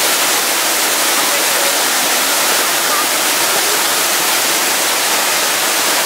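Waterfall: many thin streams of water falling over a rock face and splashing down rocky steps, a steady, loud rush with much hiss and little low end.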